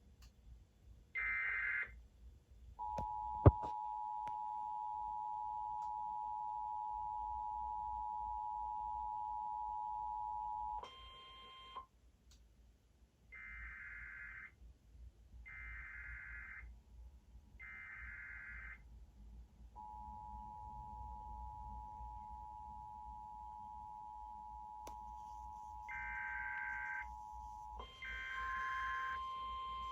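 Emergency Alert System tones announcing a severe thunderstorm warning: short buzzing SAME header data bursts and the steady two-tone EAS attention signal. One data burst is followed by the two-tone signal held for about eight seconds, with a sharp click just after it starts. Then come three data bursts about a second apart, the two-tone signal again for about eight seconds, and more bursts with a steady single tone near the end.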